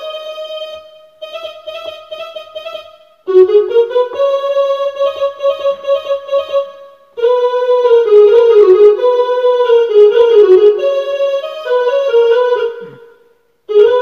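Casio CTK-2550 electronic keyboard playing a slow single-note melody on its built-in string tone, in several phrases with short breaks between them.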